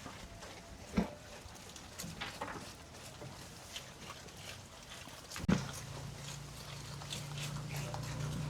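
Farm animals feeding, with scattered small clicks and rustles. There are two sharp knocks, about one and five and a half seconds in, and a steady low hum starts with the second knock.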